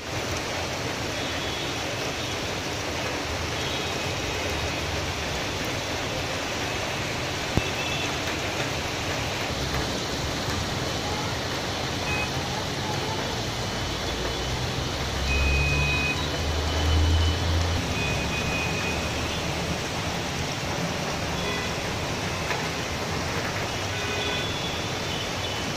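Heavy monsoon rain falling steadily, a continuous even hiss, with a low rumble that swells for a few seconds about halfway through.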